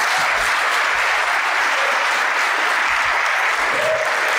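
Audience applauding, steady dense clapping.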